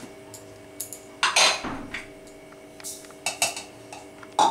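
Stainless steel bowls and a spoon clinking and scraping as poppy seeds and cashews are tipped into a mixer-grinder jar. There are several separate clinks, the loudest about a second and a half in, over a faint steady hum.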